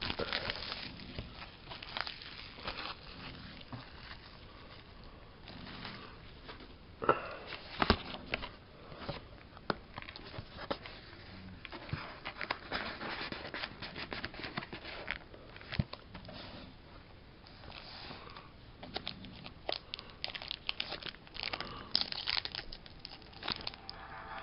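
Plastic shrink wrap being torn and crinkled off a booster box, with irregular sharp crackles throughout and a few louder snaps about 7 to 8 seconds in and again near the end.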